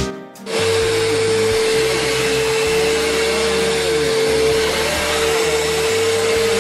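Upright vacuum cleaner running, a steady single-pitched motor hum over an even rush of air. It comes in about half a second in, as the music cuts off.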